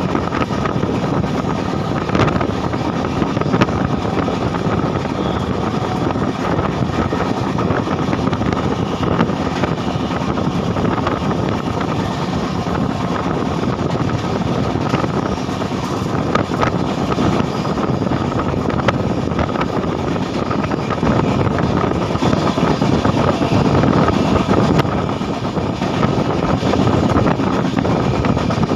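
Steady running noise of a train at speed, heard from its window: wheels rolling on the rails with wind rushing past, and a few faint clicks.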